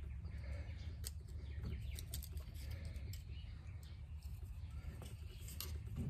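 Faint clicks and light taps of a steering wheel's turn-signal cancelling cam and hub adapter parts being handled and fitted by hand, over a low steady hum.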